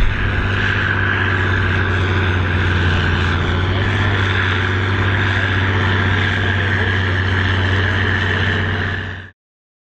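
Massey Ferguson 8130 tractor engine running hard under heavy load, pulling a tractor-pulling sled. It is a loud, steady drone with a strong low hum, and it cuts off abruptly just before the end.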